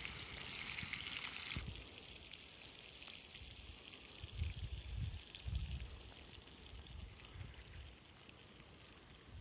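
Veal entrecôtes sizzling over a campfire: a steady hiss with fine crackling, which drops sharply to a quieter hiss about a second and a half in. A few low thuds come around the middle.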